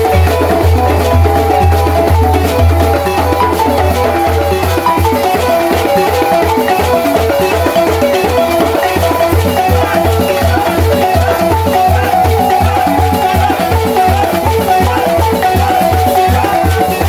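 Senufo balafon music: wooden xylophone bars struck in fast, repeating melodic patterns over a regular low beat.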